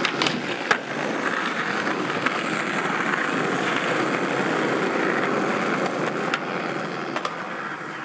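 Skateboard wheels rolling over asphalt, a steady close-up rolling noise with a few sharp clicks from the board. The noise gets quieter near the end.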